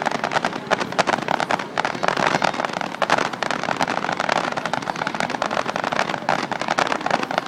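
Fireworks crackling: a dense, continuous stream of rapid pops and crackles with no pause.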